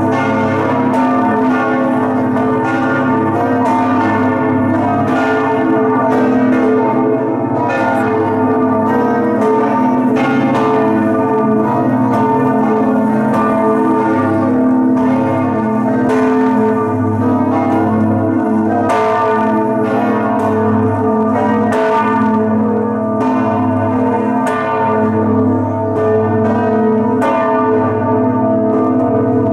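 The five bronze bells of St Mark's Campanile ringing together in full peal (plenum), swung in the Venetian 'a slancio' style, where each clapper flies up and strikes the upper side of the bell. Heard close up inside the bell chamber as a dense, unbroken clangour of overlapping strikes and long ringing tones.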